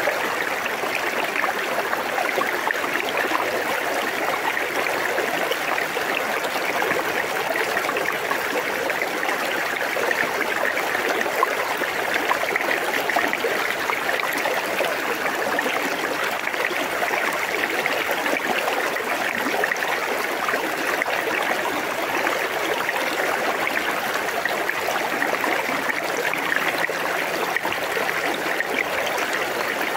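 River current babbling and trickling over stones close to the microphone: an even, unbroken water sound with fine splashy flicker.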